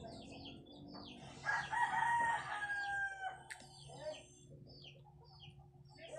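A rooster crowing once, a long call of about two seconds that falls slightly in pitch at the end, with small birds chirping around it.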